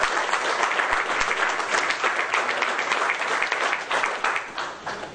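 Audience applauding, a dense run of many hands clapping that thins out and dies down near the end.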